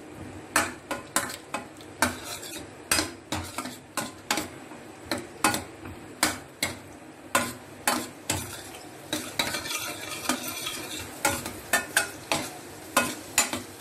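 Steel ladle stirring cashews and raisins frying in ghee in a steel pan: the ladle clicks and scrapes against the pan about twice a second over a soft sizzle.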